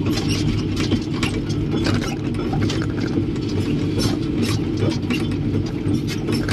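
Excavator's diesel engine running steadily, heard from inside the cab, with frequent irregular clicking and rattling over the drone.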